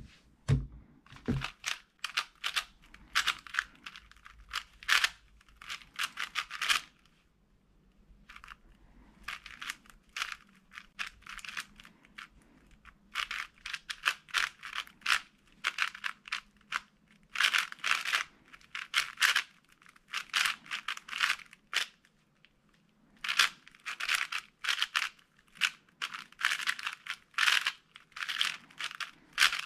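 A Moyu AoSu WR M 4x4 speedcube being turned fast: rapid plastic clicking and clacking of layer turns, in bursts of a few seconds broken by short pauses. There are a couple of dull knocks in the first second and a half.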